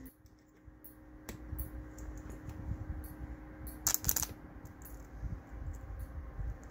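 Irregular clicks and short high-pitched crackles, the loudest about four seconds in, over a faint steady hum, as a home-built ZVS flyback plasma speaker is started up.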